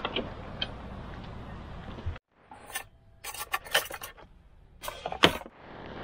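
Hands handling things: scattered sharp clicks, knocks and rubbing in a few short cuts, with a sudden drop to silence about two seconds in and the loudest click about five seconds in.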